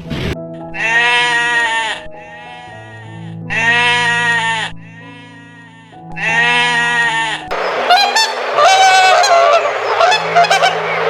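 Three long, loud animal calls of about a second each, a couple of seconds apart, over background music, then a stretch of many overlapping honking calls near the end.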